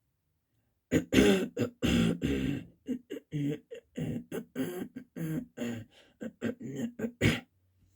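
A person giving a rapid string of forced coughs and throat-clearing hacks, starting about a second in, the first few loudest.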